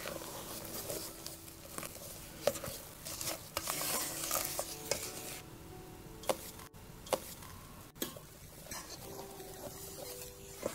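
Silicone spatula folding whipped egg whites into a thick batter in a metal rice cooker pot, scraping the bottom and sides, with a few sharp clicks along the way.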